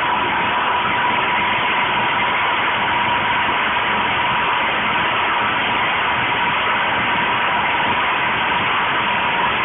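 Small portable petrol generator running steadily, fed hydrogen-oxygen gas from an electrolyser cell through a hose into its intake. An even engine noise with a steady high tone over it, unchanging throughout.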